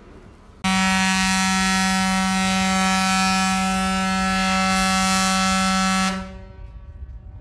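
A ship's horn sounding one long, steady blast on a single low note, starting suddenly and stopping after about five seconds.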